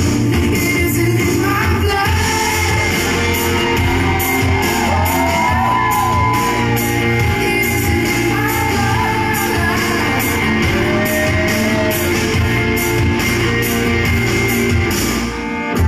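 Pop song with a singing voice and shouts, played loud in a large hall; the music dips briefly near the end.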